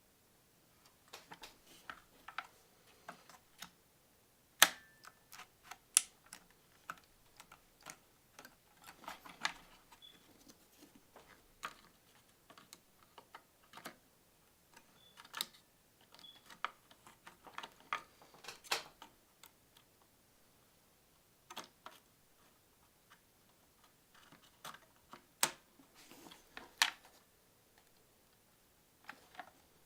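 Irregular clicks, taps and light knocks from hands fitting computer parts onto a PC motherboard, with a handful of sharper, louder clicks among them.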